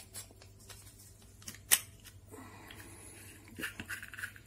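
Small handling clicks and one sharp click, then a rough scraping rub as an old metal E27 screw cap is twisted off an LED bulb's plastic body, gripped with a black plastic lamp socket.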